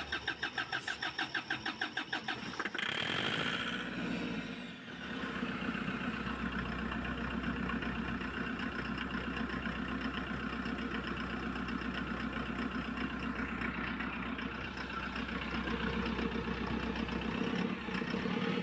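Kia Bongo 3 common-rail diesel cranking on the starter in an even rhythm of about five beats a second for roughly three seconds, then catching and running steadily on electronic cleaner sprayed into the intake hose. The engine will not start on its own because the common rail loses pressure through heavy back-leak from injectors 1 and 4.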